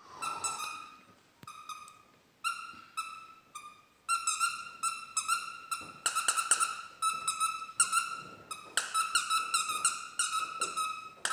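Dog biting a squeaky hedgehog toy, making it squeak over and over: a few separate squeaks at first, then fast, almost unbroken squeaking from about four seconds in.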